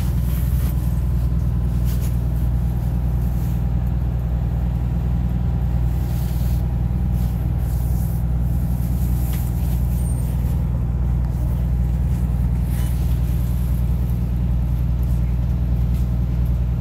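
Diesel engine of an MCI Classic transit bus running steadily, heard from inside the passenger cabin as an even low drone, with a few faint short noises over it.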